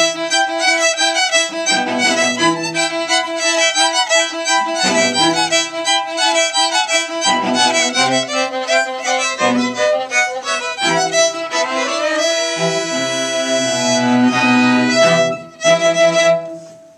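Small string ensemble of violins and cello playing a classical piece with bowed notes. It ends with two short closing chords near the end.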